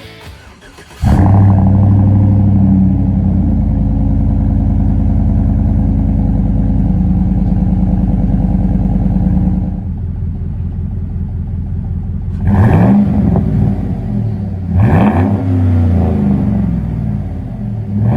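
Chevy Silverado 5.3-litre V8 through a Flowmaster Outlaw catback exhaust. It starts out idling at a raised speed, settles to a lower idle about halfway through, then is blipped twice, each rev rising and falling quickly. A third blip comes right at the end.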